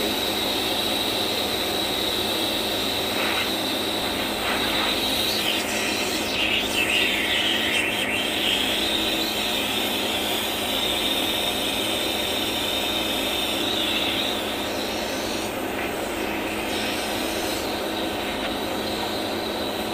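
Steady machine noise with a constant high whine, easing slightly about fourteen seconds in.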